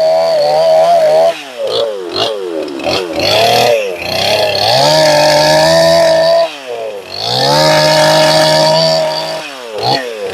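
Stihl MS250 two-stroke chainsaw running at full throttle while cutting into an oak log. Its pitch drops and swoops as the throttle is let off and blipped about a second in, again midway and once more near the end, then climbs back to full revs each time.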